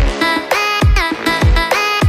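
Electronic background music with a steady beat: a deep, falling bass hit about twice a second under sliding synth notes.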